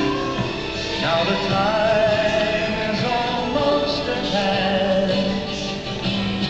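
Soundtrack music with singing: a sung melody with vibrato over instrumental backing, played back through the screen's speakers.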